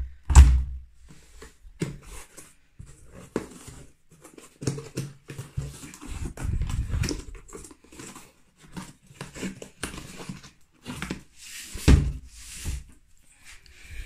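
Household handling noises at a front-loading washing machine: the door pushed shut with a heavy thump just after the start, then knocks and rustling as a cardboard box of washing powder is handled, and another heavy thump about twelve seconds in.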